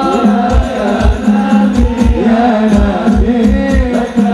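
A man singing sholawat (devotional praise of the Prophet) into a microphone, over a drum beat of about two thumps a second.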